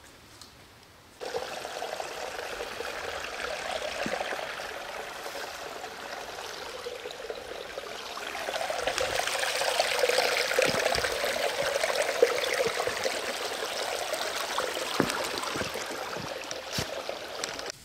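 Shallow rocky creek trickling and splashing over stones, starting suddenly about a second in and growing louder about halfway, with a few sharp knocks.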